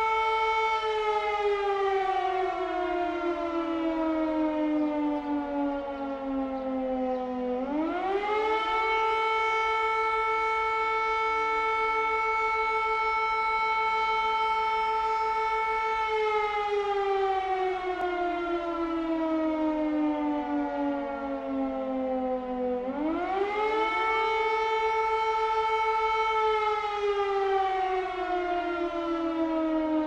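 Civil defence air raid siren wailing: its pitch falls slowly over about six seconds, sweeps quickly back up, holds high for several seconds, then falls again, twice over.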